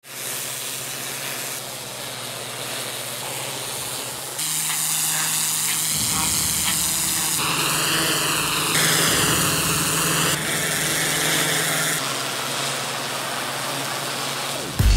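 Pressure washer lance spraying water onto paving slabs: a steady hiss over the low hum of the machine, the tone of the spray changing abruptly several times.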